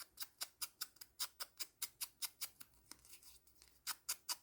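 Ink dauber loaded with black soot ink dabbed quickly against a small paper heart to distress its edges: a run of short taps, about five a second, with a pause of about a second near the end before the dabbing resumes.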